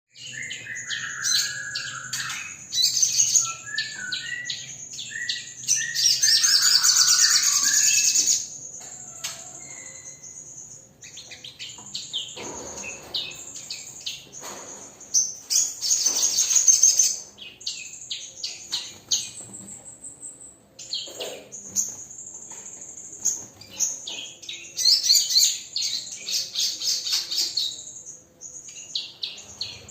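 A sogon songbird singing a lure song: fast, high-pitched chattering trills that come in loud runs every several seconds, with a few lower whistled notes in the first part.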